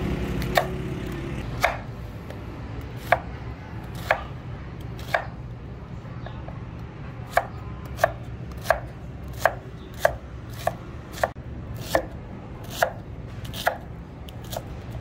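Chef's knife chopping red onion on a wooden cutting board: sharp single knocks of the blade on the board. They come about once a second at first, then more quickly from about seven seconds in as the onion is diced.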